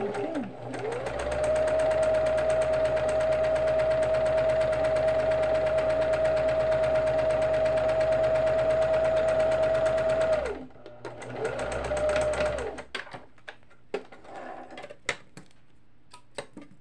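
Old Kenmore electric sewing machine stitching a seam: the motor speeds up and runs steadily for about nine seconds, stops, then runs again for about a second. A few light clicks of handling follow near the end.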